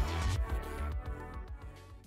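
Outro music with a heavy, steady beat, fading out.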